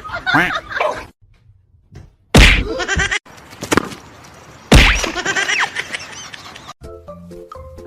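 Two loud sudden bangs about two and a half seconds apart, each followed by a moment of ringing, voice-like sound. Music with steady notes comes in near the end.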